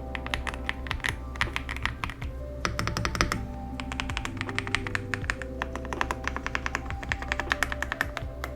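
Typing on an Aula F75 mechanical keyboard with Leobog Reaper switches: fast runs of keystroke clicks in several bursts, with short breaks between them, over lo-fi background music.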